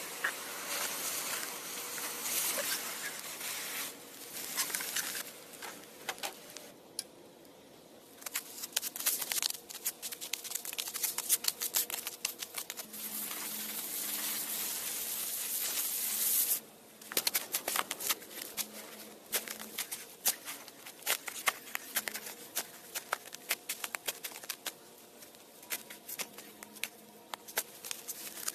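Molten metal poured into an anthill, hissing and crackling as it meets the soil. Then a shovel digs the metal cast out of the earth, with many short scrapes and crunches of the blade in dry soil and a stretch of steady hiss about halfway through.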